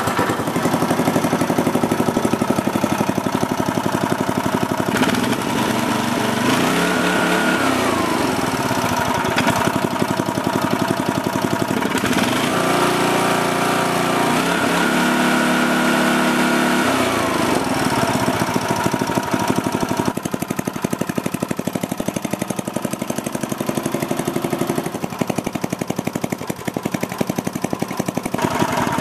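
Briggs & Stratton 5 HP single-cylinder engine on a roto-tiller running steadily on its new fuel tank. The throttle is opened twice, about six seconds in and again about twelve seconds in, and each time the pitch rises and then drops back. The second time it is held high for a few seconds. The engine runs well.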